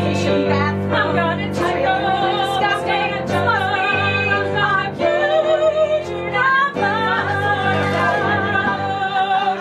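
Two women singing a melodic improvised song with vibrato over sustained keyboard chords.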